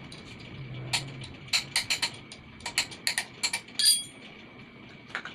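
A series of sharp metallic clinks and taps, about ten in a few seconds. The last one, about four seconds in, rings briefly. These are tools and metal pump parts knocking together as the water pump is worked on.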